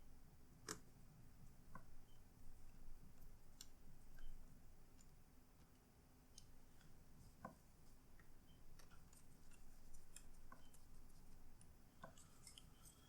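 Faint, irregular small clicks and ticks of laptop parts being handled and worked loose, a few sharper clicks standing out among softer taps.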